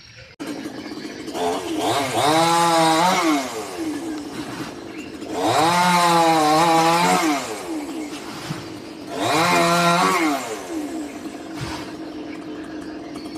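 Two-stroke gasoline chainsaw running at idle and revved up hard three times, each rev lasting about two seconds before it drops back.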